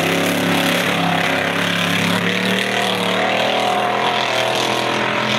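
Off-road race truck's engine running hard at high revs under full throttle, its pitch wavering and climbing a little partway through.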